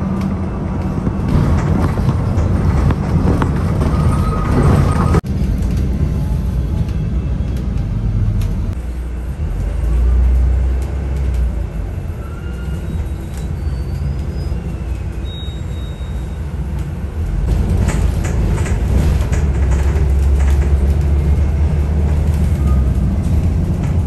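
A bus running, with a steady low engine and road rumble. The sound breaks off sharply for a moment about five seconds in.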